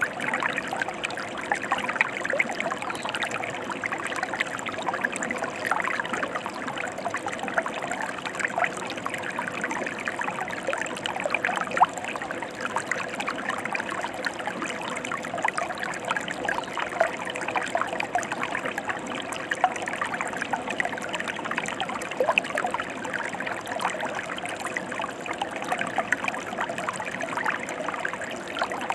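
Stream water running and splashing over rocks: a steady rushing with many small splashes.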